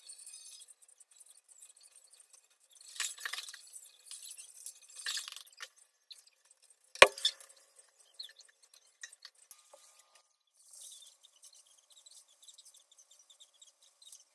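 Dishes being washed at a kitchen sink: short spells of running tap water and plates and glasses clinking, with one sharp knock of a dish about halfway through.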